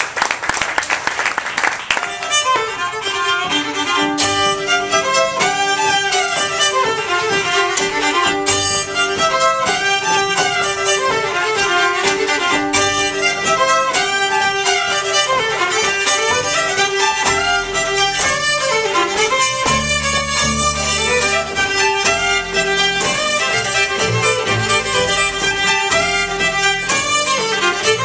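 Brief applause at the start gives way to two fiddles playing a folk tune together in unison and harmony. An upright bass comes in with low notes about two-thirds of the way through.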